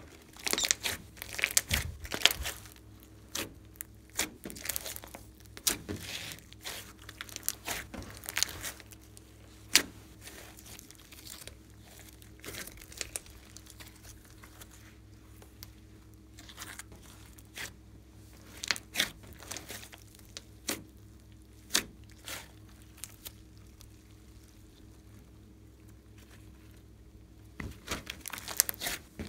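Hands squishing, stretching and folding a large glossy slime mixed with clay, glitter and beads, giving wet, sticky clicks and pops as air pockets in the slime are pressed and burst. The clicking is busy through the first ten seconds, thins out to scattered pops in the middle, and picks up again near the end.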